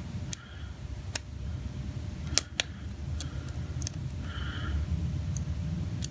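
Lock pick and tension wrench working the wafers of a Chicago Duo wafer padlock: scattered sharp metallic clicks, about eight in all and irregularly spaced, over a low handling rumble.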